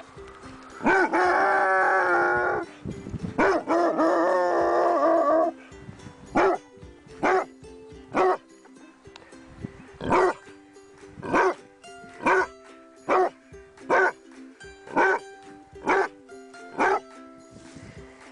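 A dog gives two long howls early on, then barks about a dozen times at a steady pace of roughly one bark a second, over background music.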